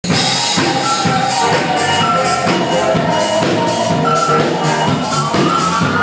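Rock band playing, with a steady drum beat that strikes about twice a second under sustained guitar and keyboard-like notes.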